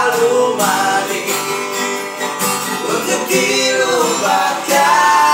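Acoustic guitar strummed as accompaniment, with a man singing along.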